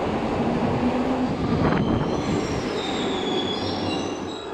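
Glasgow Subway train running past the platform with a steady rumble. A single knock comes just before halfway, and then several high metallic squealing tones set in from the wheels and brakes.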